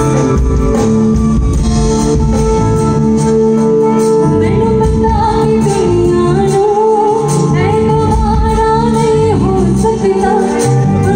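Live band music over a stage PA: a woman sings into a microphone over held keyboard chords, her voice coming in about four seconds in.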